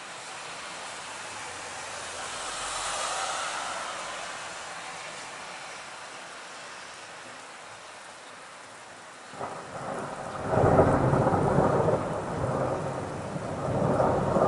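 Steady hiss of rain, then about nine seconds in a roll of thunder breaks in suddenly and rumbles on, swelling again near the end.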